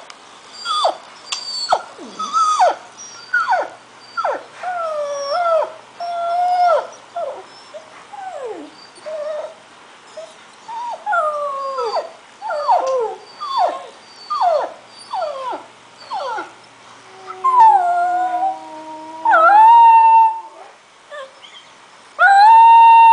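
Scottish terrier puppy howling and crying: a run of short cries that each slide steeply down in pitch, then longer held howls in the last few seconds, the loudest one at the very end. It is the excited vocalising of a dog worked up by dog sounds from a video.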